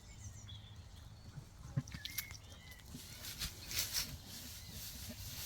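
Sheep in a lambing pen: quiet scattered rustling and short clicks, busiest about three to four seconds in, with no clear bleat.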